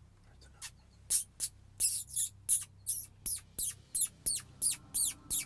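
A hunter's mouth squeaks, a rapid series of short high-pitched squeaks, each falling in pitch, about three a second, starting about half a second in. They mimic a mouse to call a coyote in closer.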